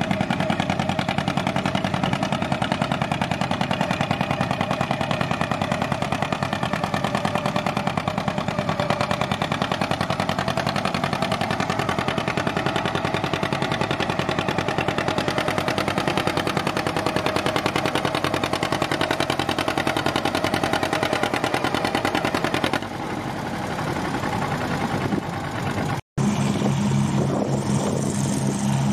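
Antique John Deere two-cylinder tractor engine under load pulling a weight-transfer sled, its exhaust beating in a rapid, even rhythm. Its sound drops off a little over 20 seconds in, and after a sudden cut another tractor engine runs with a steadier hum.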